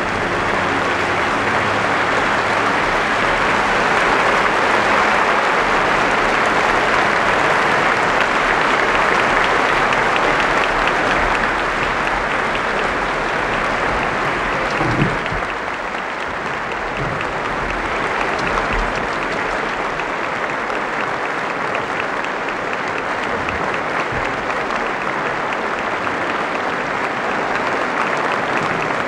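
Theatre audience applauding steadily, with the last notes of the music dying away in the first second.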